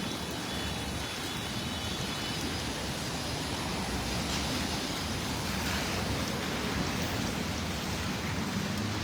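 Steady rain and city traffic on wet streets, a continuous hiss of rainfall and tyres on wet pavement. A faint high tone sounds over it for the first two seconds or so.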